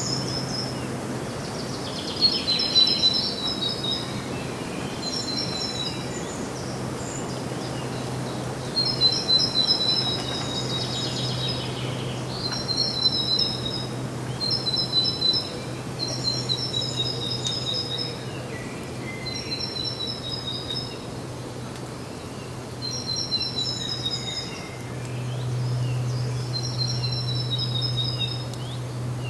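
A songbird sings the same short phrase over and over, about every two seconds: a quick run of high, rapidly repeated chirps. A steady low hum runs underneath.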